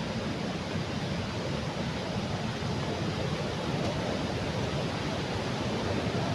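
Steady rush of a waterfall, growing slightly louder towards the end.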